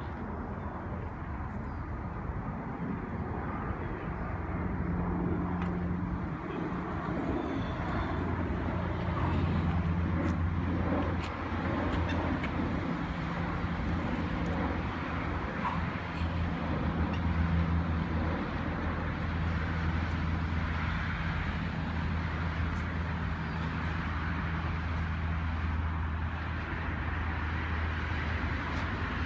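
Steady outdoor rumble of motor traffic, with a low engine drone that comes in about five seconds in and fades near the end.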